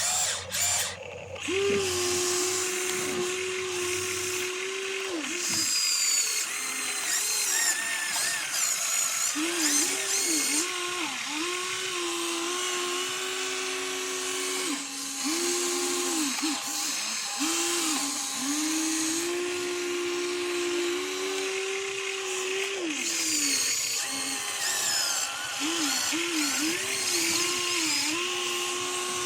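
Small electric motors of a radio-controlled toy excavator whining in repeated spurts, each start and stop giving a quick dip and rise in pitch, sometimes running steadily for several seconds.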